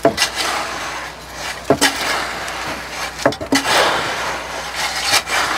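Wet concrete being dragged along a foundation trench with a concrete rake: an uneven run of scraping and sloshing, with a few sharp knocks.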